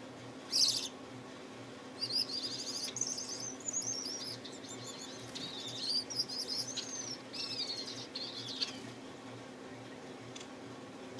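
Male Gouldian finch singing. A short high note comes about half a second in, then about seven seconds of rapid, high-pitched twittering with downward-sweeping notes.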